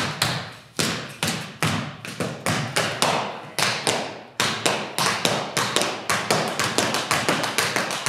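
Tap shoes striking a studio floor in a percussive dance rhythm: spaced, accented strikes at first, then quicker, denser tapping from about five seconds in.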